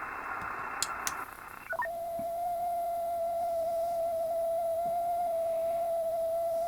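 Radio receiver hiss with two short clicks, then the hiss drops away and a steady whistling tone sets in: the spurious carrier from an ultrasonic humidifier, heard as a beat tone through the receiver.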